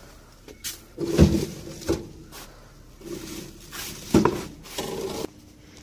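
Heavy steel wood-burning stove being gripped and shifted: a few metal clunks and scrapes. The loudest knocks come about a second in and just after four seconds.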